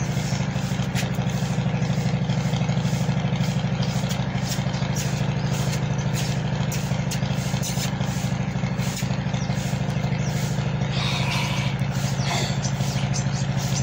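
An engine idling steadily, a constant low hum with a fast even beat.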